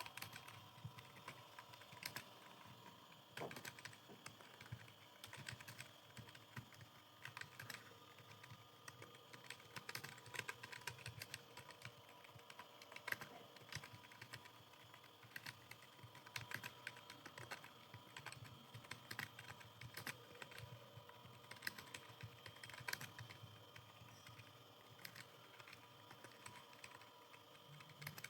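Computer keyboard being typed on at a steady pace, a fast irregular run of faint key clicks.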